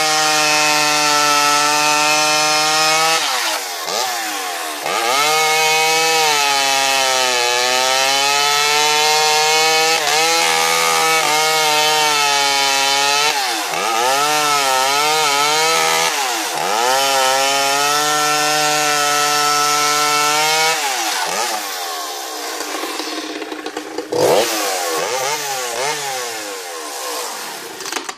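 Husqvarna L77 two-stroke chainsaw with an expansion-chamber exhaust pipe, running at full throttle through a large log. Its pitch dips and recovers several times as the chain bites into the wood. It drops to a lower, uneven run with a brief rev near the end, then stops right at the end.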